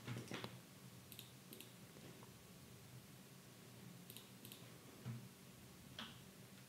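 Faint computer mouse clicks, two pairs of quick clicks about three seconds apart, over near-silent room tone, with a few soft low bumps.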